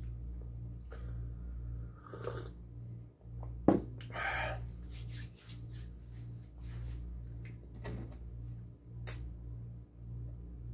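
Steady low hum, pulsing evenly, from a window air conditioner running. Over it are a few small clicks and rustles, and one sharp knock about three and a half seconds in as a ceramic mug is set down on a table.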